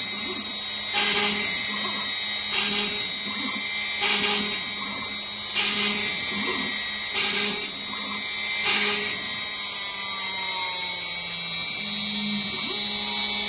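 Shapeoko 3 XXL CNC router drilling walnut with a 0.100-inch bit: the spindle whines steadily at 12,000 rpm. The machine plunges and moves on from hole to hole in a repeating cycle about every second and a half, with a short hum from the axis motors each time. After about nine seconds the cycle stops and the motors' hum glides up and down in pitch as the machine travels.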